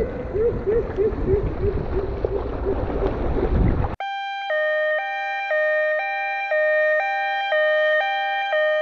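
Rushing river water and kayak noise on a GoPro, with a faint repeating pitched sound. About four seconds in this cuts off sharply to electronic music: steady synthesized tones pulsing about twice a second.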